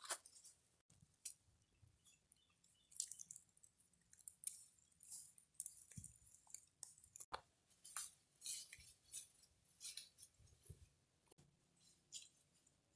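Faint, irregular rustling and crunching, short scattered noises about once or twice a second.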